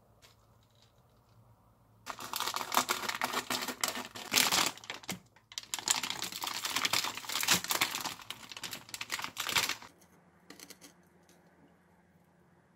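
Thin plastic bag crinkling and crackling as it is peeled off a raw pork liver by hand, starting about two seconds in and running for some eight seconds with a brief pause halfway.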